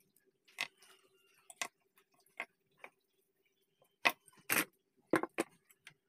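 Small metal carburetor parts and a screwdriver clicking and tapping on a workbench as they are handled and set down: about seven short, sharp clicks at irregular intervals, most of them in the second half, over a faint steady hum.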